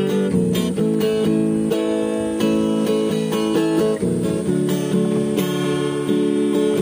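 Background music: a strummed and picked acoustic guitar piece with chords changing every second or so.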